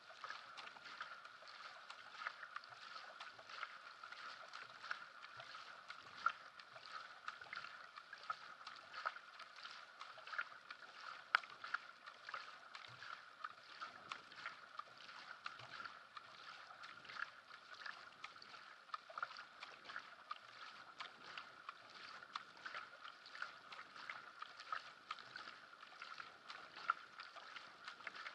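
Sprint kayak paddle blades catching and leaving the water in quick, repeated splashes, with water rushing along the hull, heard close up from a camera on the bow deck. A steady faint whine sits underneath.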